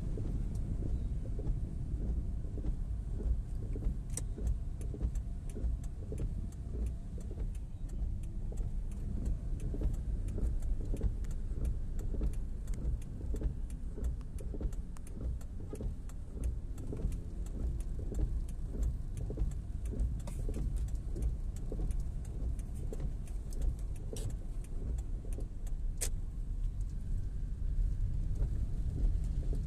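Steady low rumble of a car's road and engine noise heard inside the cabin while driving in heavy rain, with raindrops ticking on the windscreen and roof. A few sharper clicks stand out.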